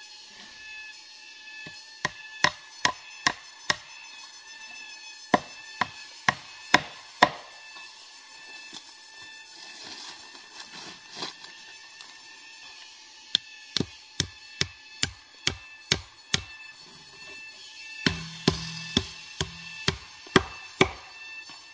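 Repeated sharp knocks in runs of five to eight blows, about two or three a second, with pauses between the runs.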